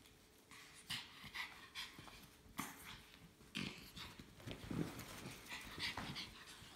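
Two small dogs making short, irregular noises and panting, one nosing into a soft fabric pet carrier while the other is inside it.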